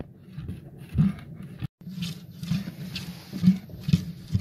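Thick, congealing scrapple mush being stirred with a paddle in a steel kettle: irregular low thumps and gurgles about every half second. There is a brief dropout about a second and a half in.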